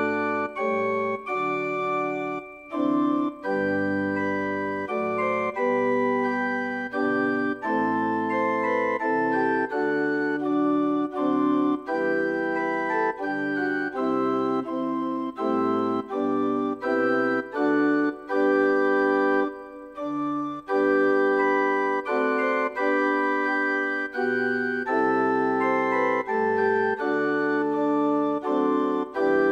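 Church organ playing a hymn in sustained chords, the notes changing every second or two with short breaks between phrases.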